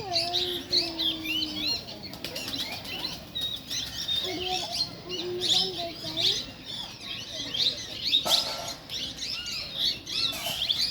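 Many birds chirping and chattering in a dense, continuous chorus of short high chirps. A lower drawn-out tone sounds under them at the start and again around five seconds in, and there is a brief noisy rustle at about eight seconds.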